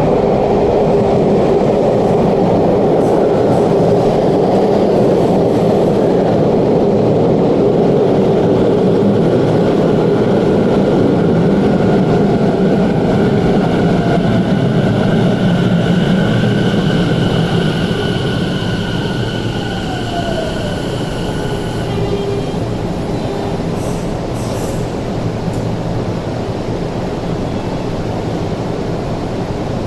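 Tobu 50070-series electric train pulling into an underground station and braking to a stop: a loud rumble of wheels on rail. The motor inverter whine falls in pitch as the train slows, and the rumble eases after about eighteen seconds. Brief hisses follow a few seconds later.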